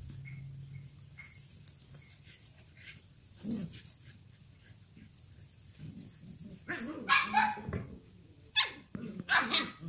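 Samoyed puppies barking in play, a string of short, sharp yaps in the second half.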